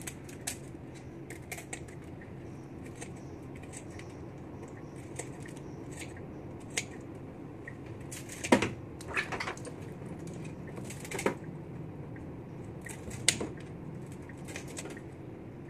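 Kitchen scissors snipping through mantis shrimp shell, trimming off legs and sharp edges: scattered short crisp snips and crunches, a few louder ones in the second half, over a steady low hum.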